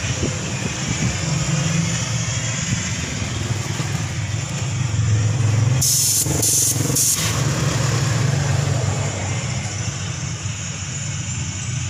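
Compressed air hissing from a hose in several short blasts about six to seven seconds in, over a steady low hum. The air is being blown into a soapy copper radiator tank to check it for leaks.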